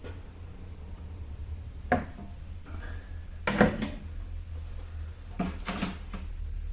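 Small hard objects being handled and put down: a clack about two seconds in, a louder clatter of knocks a second and a half later, and two more knocks near the end, over a steady low hum.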